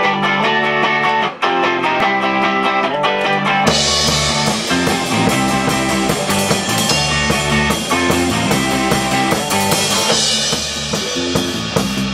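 Live rock band: an electric guitar riff plays alone, and about four seconds in the drum kit with cymbals and the bass guitar join and the full band plays on.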